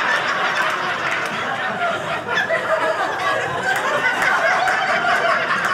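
Studio audience laughing, many voices at once, loud and sustained.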